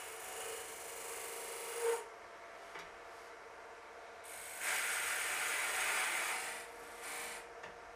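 Robert Sorby TurnMaster tool cutting a spinning wood blank on a lathe while forming a tenon: a hissing, scraping cut. The cut stops about two seconds in and comes back from about four and a half seconds to nearly seven, with a short touch just after.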